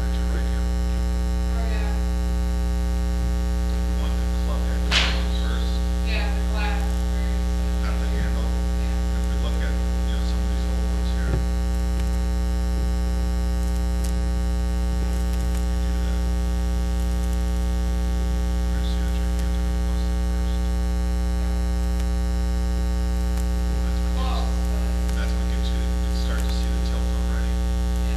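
Steady electrical mains hum, a low buzz with many overtones. There is one sharp click about five seconds in, a smaller click later, and a few faint short squeaks.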